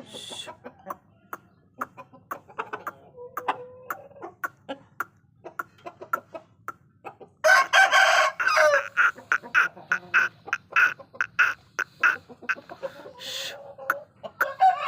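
Aseel chickens clucking with short scattered calls. About halfway through comes one loud call lasting a second or so, followed by a run of sharp calls repeated two or three times a second.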